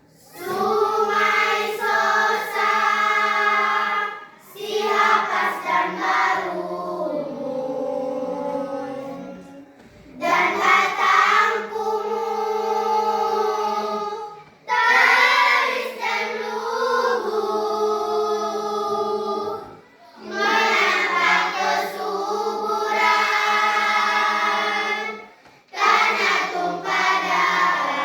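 A choir singing, in phrases of a few seconds each with brief pauses for breath between them.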